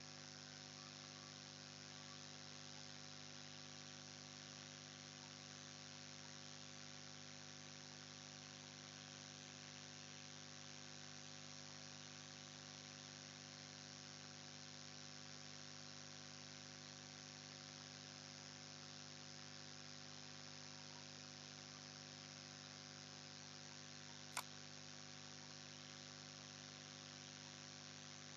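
Near silence: a steady electrical mains hum with hiss underneath. A single sharp mouse click sounds about three-quarters of the way through.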